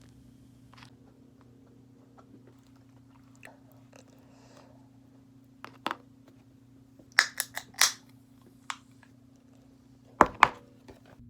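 Someone eating in a small room: chewing and crunching, with a few sharp loud clicks about six, seven to eight and ten seconds in, over a steady low hum.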